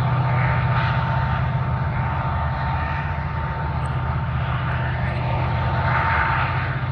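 Diesel locomotive pushing as the rear distributed-power unit of a freight train, its engine working hard under load. It makes a steady low drone with a thin steady tone above it.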